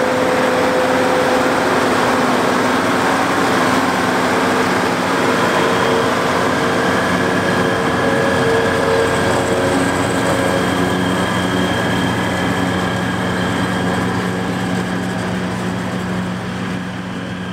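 White 195 tractor's diesel engine running under load with a forage harvester, a steady mechanical drone with a constant whine over it, growing slightly fainter near the end.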